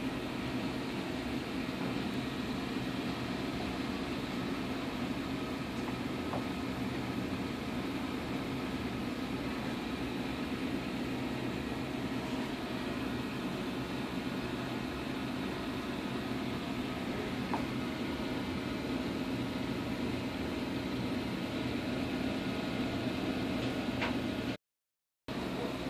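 Steady hum and hiss of a reef aquarium's running pumps and circulating water, cutting out for a moment near the end.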